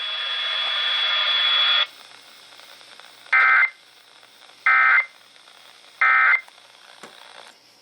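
Emergency Alert System audio at the close of a flash flood warning. A steady buzzing tone lasts nearly two seconds, then three short identical data bursts come about 1.3 seconds apart: the EAS end-of-message codes that close the alert. Faint radio hiss lies between them.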